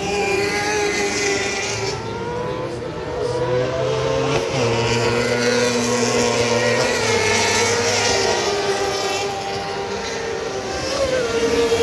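Several off-road racing buggies' engines running hard on a dirt track, their overlapping engine notes rising and falling in pitch and stepping down now and then.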